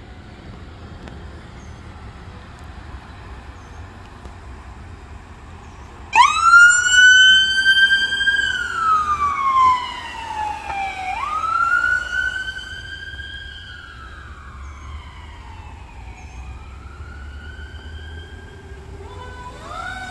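Bedford fire department command SUV's siren switching on abruptly about six seconds in and wailing as the vehicle passes. Each cycle rises quickly, holds, then falls slowly, about every five seconds, growing fainter. Before it there is only low road rumble, and near the end a second siren starts up on the ambulance following behind.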